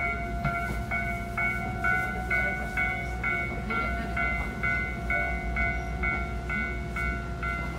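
Railway level-crossing warning bell clanging in an even beat, about two strikes a second, over the low, steady rumble of the train rolling slowly into a station.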